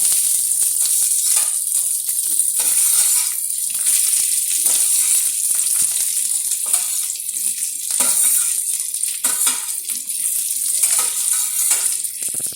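Boiled potatoes frying with onions and spices in hot oil in a kadai: a steady sizzle, with a spatula scraping and knocking against the pan at irregular moments as the mixture is stirred.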